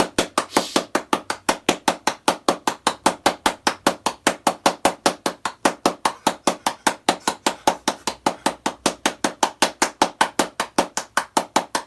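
A rapid, machine-even train of sharp knocks or taps, about five or six a second, holding a steady pace.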